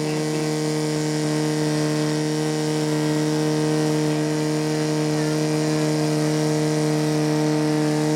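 Portable fire pump's engine running steadily under load, pumping water to two hose nozzles at full jet.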